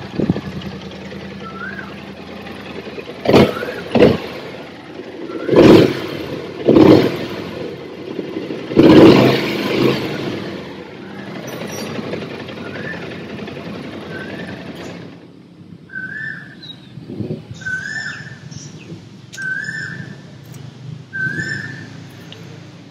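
BMW C650 Sport maxi-scooter's 647 cc parallel-twin engine idling, blipped sharply about five times in the first ten seconds. Short high chirps repeat near the end.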